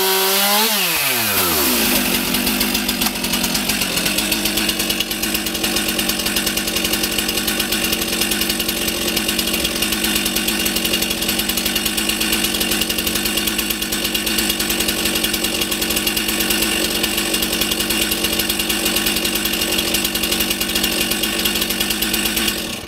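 Stihl MS 362 two-stroke chainsaw dropping from high revs to idle about a second in, then idling steadily, and stopping abruptly at the very end.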